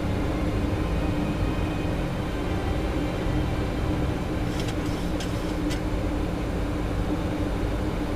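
Steady cockpit noise of an airliner on approach: engine and airflow drone with a low rumble and a steady hum. A few short clicks sound in the middle, about half a second apart.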